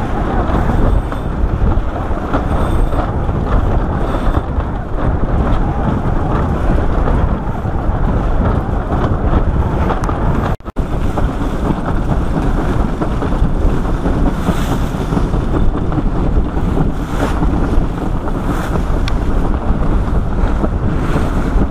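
Wind buffeting the microphone over the rush of waves along the hull of a sailing yacht under way. The noise is loud and steady, with a momentary cut-out near the middle.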